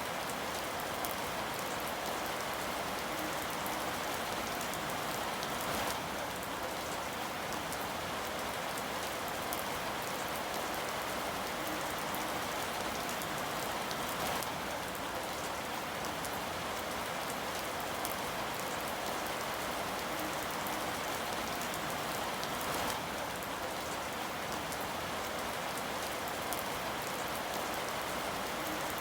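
Steady rain falling, a continuous even hiss with scattered fine drop ticks.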